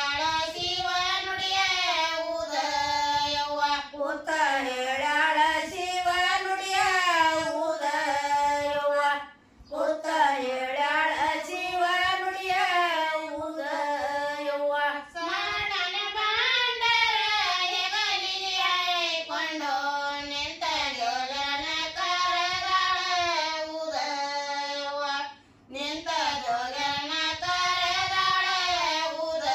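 Women singing a North Karnataka Kannada folk song in high voices, with short breaks between phrases about nine and twenty-five seconds in.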